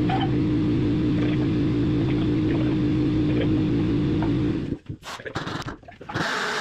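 Overhead crane's electric hoist motor running with a steady hum as it lifts a lift axle on its chains. It stops abruptly about three-quarters of the way through, followed by a few irregular clanks and rattles as the hanging axle is handled.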